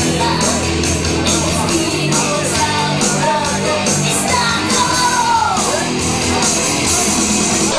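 Live punk rock band playing loud: distorted electric guitar, bass and drums with steady cymbal hits, and a shouted, sung vocal line over it.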